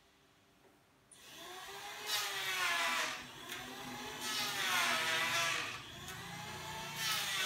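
Electric power sander on a wooden tabletop, starting about a second in. Its pitch dips and rises and it grows louder in three swells as it is pressed and swept across the wood.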